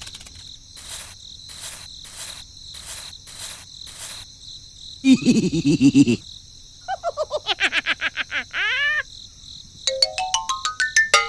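Steady high insect chirring with a string of comic sound effects over it: regular soft pulses, a low bouncing boing about five seconds in, a quick series of falling pitched notes, and a rising run of stepped tones near the end.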